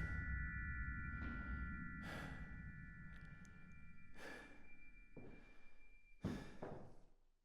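Faint breathing, one breath every second or two, over a faint low rumble and a high held tone that fade out near the end.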